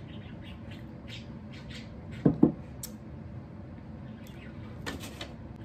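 A pet bird in its cage chirping and squawking now and then, with two quick low thumps a little over two seconds in, the loudest sound.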